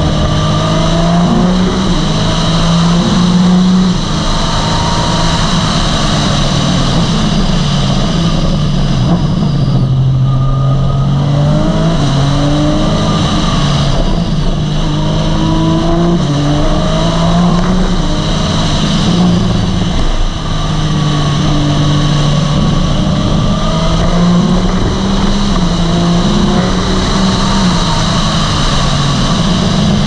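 Porsche GT3 Cup rally car's naturally aspirated flat-six at full power, heard onboard: the engine note climbs hard through the revs and drops back at each upshift, over and over. It eases off briefly a couple of times, about four seconds in and near twenty seconds, before pulling again.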